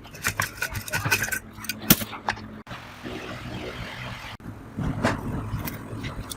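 Clinks, clicks and knocks of small metal parts being handled and worked on, with a few brief ringing metallic tones early on. The sound breaks off abruptly twice between edited clips.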